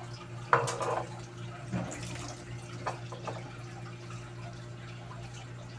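Thick champorado (glutinous rice in coconut milk) simmering in a pot, giving a few soft bubbling plops and pops, the loudest about half a second in, over a steady low hum.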